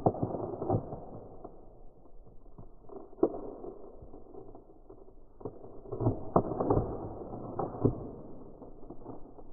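A paper envelope's tear strip being pulled along, ripping the paper open with crackling and rustling from the hands; sharper rips come about three seconds in and again around six to eight seconds.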